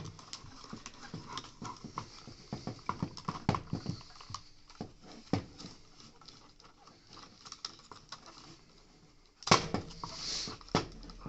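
Hard plastic parts of a Dyson cleaner head's neck being handled as the rubber bellows hose is pushed into place by hand, with scattered small clicks and scrapes. A sharper knock comes about nine and a half seconds in, followed by a brief rustle.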